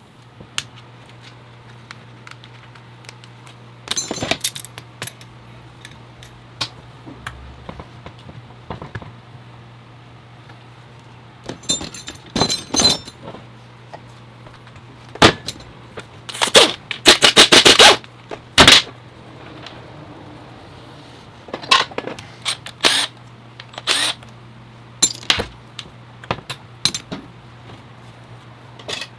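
Metal parts of an automatic transmission being handled: scattered clanks, clicks and scrapes, with a dense run of rattling clanks a little past the middle, over a steady low hum.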